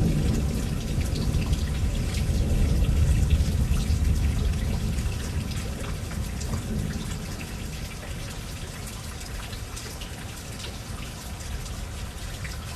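Steady rain falling with scattered drips, under a low rumble of thunder that swells in the first few seconds and fades away by about the middle.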